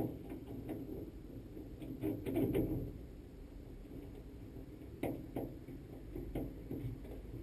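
Light metal clicks and rattles of a Chevrolet C10 door handle being worked into place on the door, a busier cluster about two seconds in and a few single clicks near the end.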